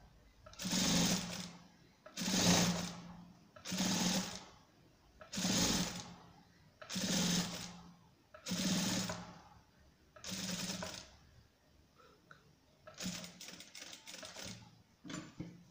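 Electric sewing machine stitching bias binding onto the edge of a cotton kitchen towel, run in short bursts of about a second each, with a steady motor hum in every run. Near the end it goes in quicker stop-start spurts as the fabric is guided a few stitches at a time.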